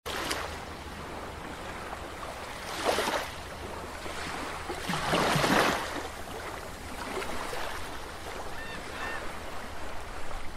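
Underwater sound effects under an animated logo: a steady low hum of water ambience with two swelling whooshes, about three and five seconds in, the second the louder, and a few short high blips near the end.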